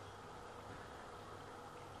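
Faint steady sizzle of small dough pieces deep-frying in hot oil.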